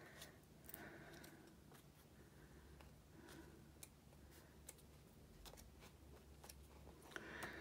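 Faint rustling and soft clicks of the pages of a hardback book being turned by hand, with a low steady room hum beneath.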